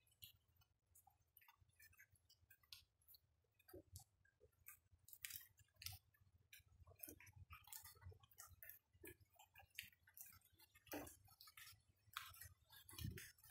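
Faint rainwater dripping: irregular small taps, several a second, over a steady low hum, with a soft low thump near the end.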